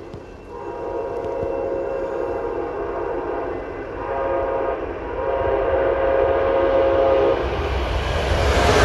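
Amtrak passenger train's air horn sounding a chord in three blasts, long, short and long, for the grade crossing as the train approaches at about 110 mph. Near the end the rush of the train arriving grows louder.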